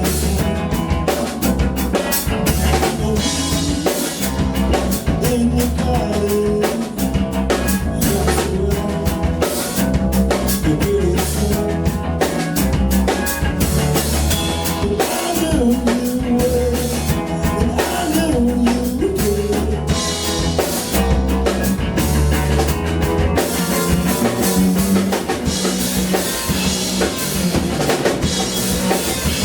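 Live band playing a rock song, with drum kit and bass prominent.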